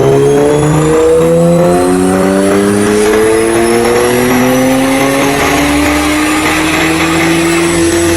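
Nissan Z sports car engine accelerating under load, its pitch climbing steadily through one long pull.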